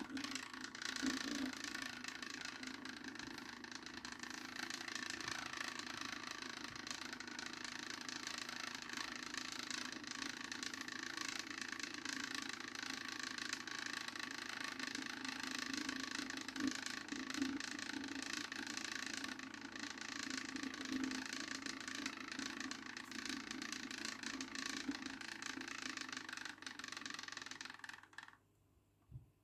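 Magnetic stir plate running with its stir bar spinning in a glass flask of liquid: a steady whirring hum and hiss that cuts off suddenly near the end as the plate is switched off, followed by a single click.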